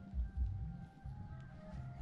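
Soft background music with held notes over a low bass.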